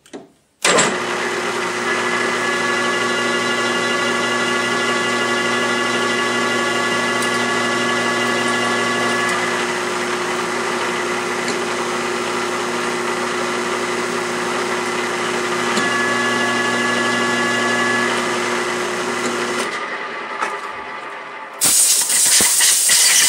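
Drill press starting up about a second in and running steadily for nearly twenty seconds while it drills a tap hole into the end of an aluminium extrusion, then winding down. Near the end, a loud hiss from a compressed-air blow gun, blowing chips out of the hole.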